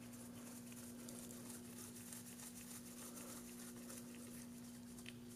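Near silence: quiet room tone with a faint steady hum.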